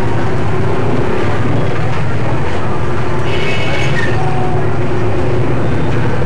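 Busy street traffic: a steady, loud engine rumble from passing vehicles, with a brief higher-pitched tone a little past three seconds in.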